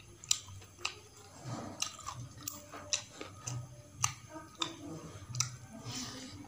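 Close-up chewing of a mouthful of rice and tender stewed chicken eaten by hand, with sharp wet mouth smacks scattered irregularly through.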